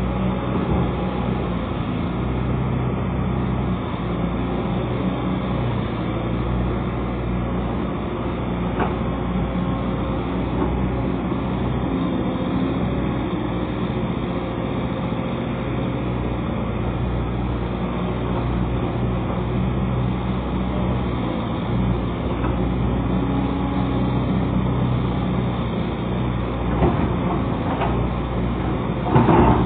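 Excavator's diesel engine running steadily, with a few short clanks and the loudest knock near the end.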